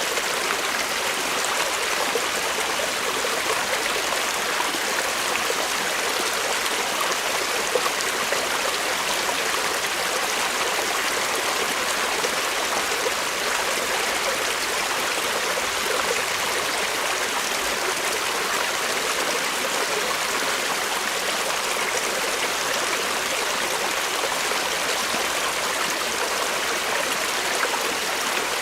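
Forest creek running steadily: water rushing and splashing over stones in an even, continuous wash.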